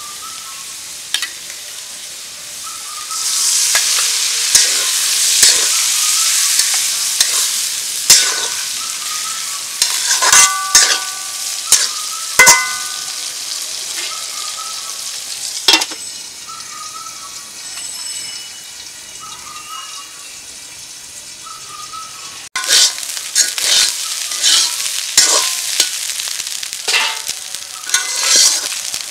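Food frying in a metal karahi: hot oil sizzling, the hiss swelling loud about three seconds in, with clacks and scrapes of a metal spatula stirring against the pan. From about three-quarters of the way through the stirring turns into rapid, continuous scraping.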